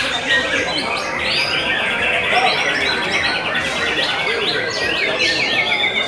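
Caged white-rumped shamas singing at once in a contest, a dense overlap of fast trills, chatters and whistles with no gap.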